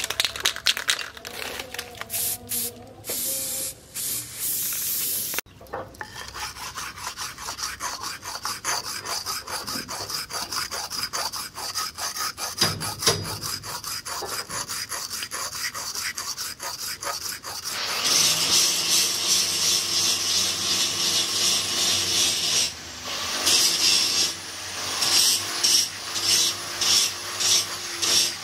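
Steel axe blade, forged from leaf spring, being sharpened by hand on a stone: rapid back-and-forth rasping strokes of steel on stone, louder and more separate about two-thirds of the way in. A short aerosol spray hiss comes first.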